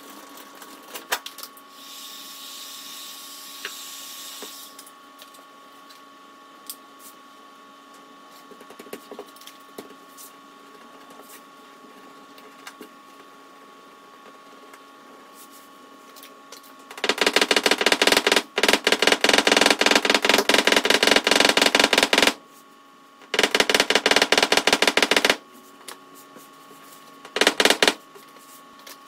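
Rapid metallic tapping on the R32 Skyline GT-R's aluminium bonnet during dent-repair work, in three loud runs in the second half: one of about five seconds, a shorter one of about two seconds, and a brief one near the end.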